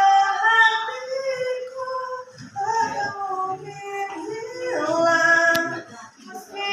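A teenage girl singing solo, a slow melody of long held notes that bend between pitches, with short breaks between phrases.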